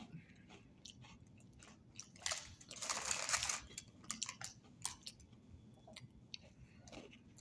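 A rustle of the plastic Oreo packet about two to three seconds in as a cookie is taken out, then an Oreo sandwich cookie being bitten and chewed with crunching clicks.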